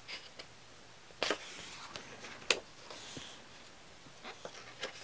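A page of a glossy photo book being turned: a short papery swish about a second in, then a sharp snap as the page comes down, the loudest sound.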